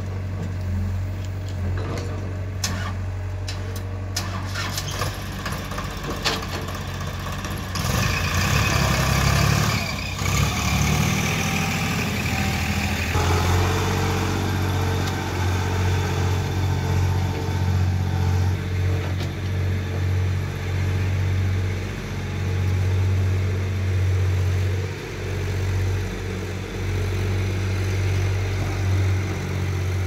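Diesel engines of farm tractors and an excavator running with a steady low throb, and a few sharp knocks in the first seconds. The engine noise grows louder and harsher from about eight seconds in.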